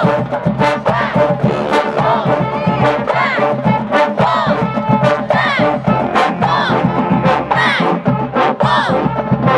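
Marching band brass section, trombones and trumpets, playing a loud up-tempo tune over regular drum hits, with shouts and cheering mixed in.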